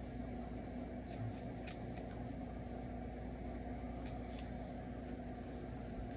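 Steady low background hum with a faint steady tone, and a few faint soft rustles of paper trading cards being handled and flipped through.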